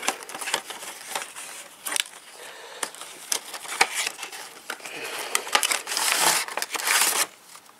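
Cardboard model-train box and its packaging rustling and crinkling as the end flap is opened and the wrapped car is slid out, with many small clicks and scrapes. The rustling is loudest about six to seven seconds in.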